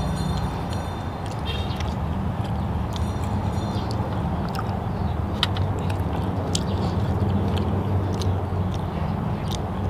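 A person chewing food close to the microphone, with scattered small mouth clicks, over a steady low hum.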